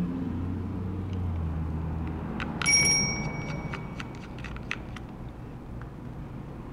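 A small metal object clinks once on the bench, about two and a half seconds in, and rings briefly with a high bell-like tone. Light clicks and taps of small parts being handled follow.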